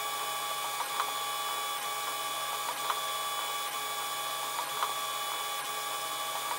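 Protomaker Sprint FDM 3D printer running a print: its stepper motors whine in several steady tones, with a light tick every second or two as the print head moves.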